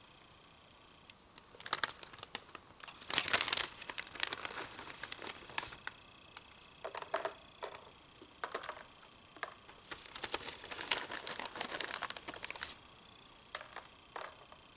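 Crinkling and rustling handling noise close to the microphone, in irregular bunches of sharp crackles, loudest about three seconds in and again past the ten-second mark.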